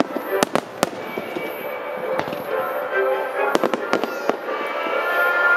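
Aerial firework shells bursting in sharp bangs, several close together in the first second and another cluster about three and a half seconds in, over music with long sustained notes.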